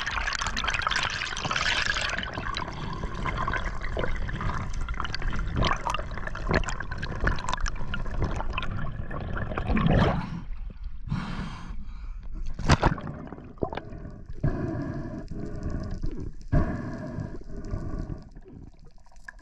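Water rushing over an underwater action camera as a spearfisher swims, with scattered clicks and a few sharp knocks. From about two thirds of the way in, a muffled droning sound with several tones starts and stops a few times.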